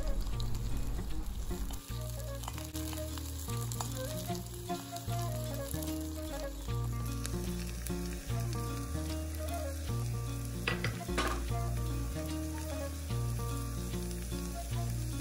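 Sliced onions and green chillies sizzling in hot oil in a cast-iron kadai, with a steady frying hiss. Diced carrot is tipped into the pan partway through, and there are two sharp knocks a little after ten seconds.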